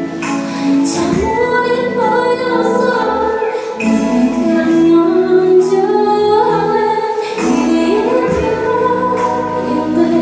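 A woman singing live into a handheld microphone, holding and bending long sung notes over musical accompaniment.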